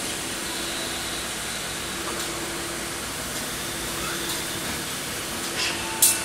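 Machine tool cutting a small adjustment screw under a flood of cutting oil: a steady hiss of oil spray and running machinery with a faint low hum, and a short sharp high-pitched hiss near the end.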